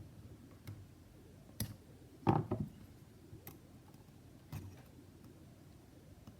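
Small tool picking at the cracked camera lens glass on the back of an iPhone 11: scattered light clicks and taps, with the loudest little cluster of clicks a little over two seconds in.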